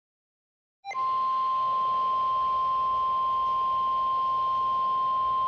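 Emergency alert warning tone: after a short lower blip, one steady high beep starts about a second in and holds unchanged over a faint hiss. It announces an incoming tornado warning.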